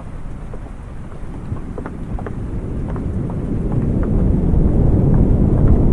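Raindrops tapping on a wooden awning in scattered single ticks, over a low, steady wash of ocean surf that swells louder in the second half.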